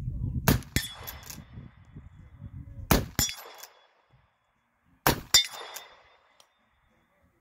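Three shots from an 1860 Henry-pattern lever-action rifle in .45 Colt, about two and a half seconds apart. Each shot is followed by a brief metallic ring from the struck steel plate target.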